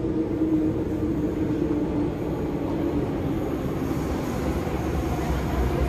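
Thomson-East Coast Line MRT train sound: a steady rumble with a hum that fades out over the first few seconds, then a low rumble swelling near the end.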